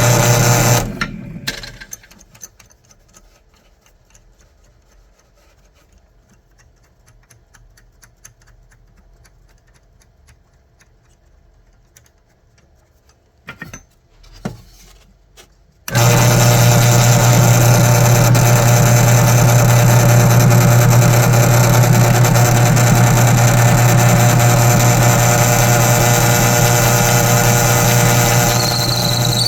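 Power tool motor running steadily, switched off about a second in and winding down. After a quiet stretch with a couple of brief knocks, a motor starts abruptly about halfway through and runs steadily.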